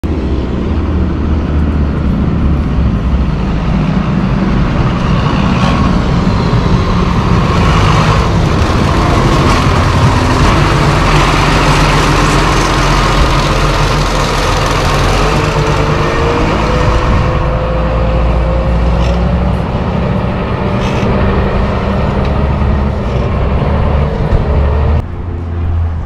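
John Deere 6830 tractor's diesel engine running loud and steady as the tractor drives past close by, with a whine rising slowly in pitch through the second half. The sound breaks off abruptly near the end.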